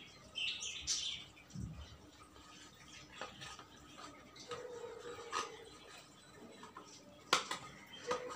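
Paper and cardboard being handled: a firecracker wheel set into its small cardboard box and small cracker boxes picked up, with light rustles and taps. A sharp click about seven seconds in is the loudest sound.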